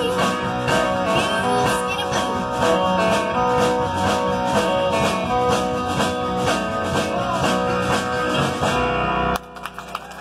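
Live country band with guitar and keyboard playing a steady beat, cutting off abruptly about nine seconds in.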